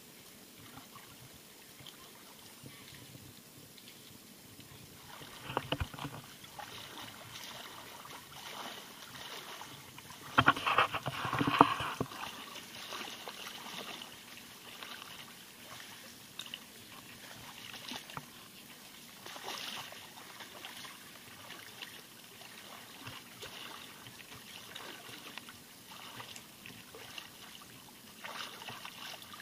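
Shallow seawater splashing and sloshing in irregular bursts as someone wades through it, loudest about ten to twelve seconds in, over a steady light trickle of water.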